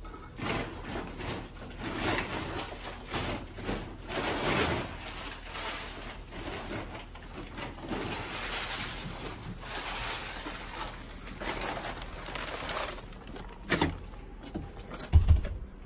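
Plastic sheeting rustling and crinkling in dense, crackly bursts as it is pulled out of a sack and bunched up, with a couple of knocks and a low thud near the end.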